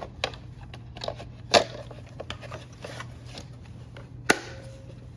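Plastic gauge-cluster parts being handled by hand: scattered light clicks and taps, with two sharp knocks, one about one and a half seconds in and one near the end, over a low steady hum.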